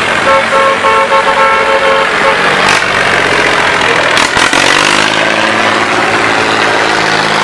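Old tractor engines running on a dirt race track, with a horn sounding in short repeated toots during the first two seconds. A couple of sharp knocks come around the middle, then a tractor engine's drone rises slightly as it pulls closer.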